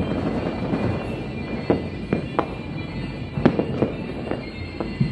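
Fireworks going off: a string of sharp bangs at irregular intervals over a continuous rumble of more bursts.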